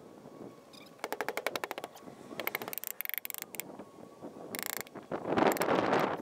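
Quick runs of mechanical clicking, about ten clicks a second, then a loud rushing noise sets in about five seconds in.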